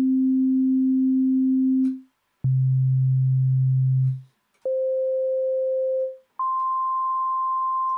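Pure sine-wave tone from the Alchemy software synth played as four held notes on C, each about two seconds with a small click as it starts. The first is around middle C, the second an octave lower, then one an octave above middle C, and the last another octave up at about 1 kHz.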